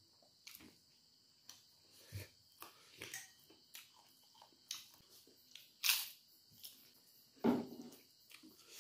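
Eating sounds: chewing and mouth smacks, with a hand working rice on a banana leaf. They come as irregular short clicks and soft bursts, the loudest two about six and seven and a half seconds in.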